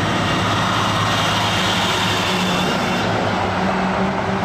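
A steady machine drone, a low engine-like hum under a broad hiss, that cuts off abruptly at the end.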